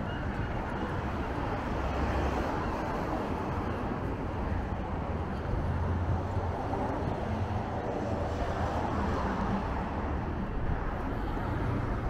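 Steady street ambience of road traffic, a continuous low rumble with no single event standing out.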